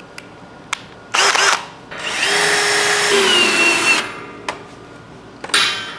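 Cordless drill running in three trigger pulls against steel frame tubing: a short one just over a second in, a longer run of about two seconds whose pitch drops partway through as the motor comes under load, and a brief one near the end, bringing the sleeved tube joint up nice and tight.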